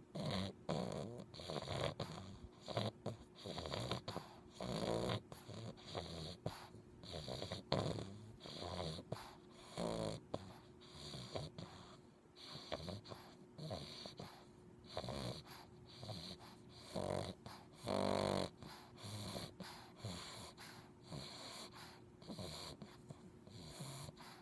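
English bulldog puppy snoring in its sleep: short snuffling snores and snorts about once a second, a few of them longer with a buzzing pitch. The snoring is typical of the breed's short, flat muzzle.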